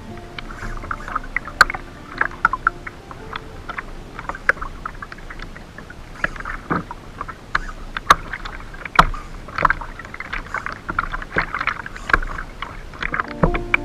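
Water slapping and gurgling against a plastic kayak hull, with many irregular sharp knocks and clicks, while the kayak is pulled about during a fight with a hooked fish.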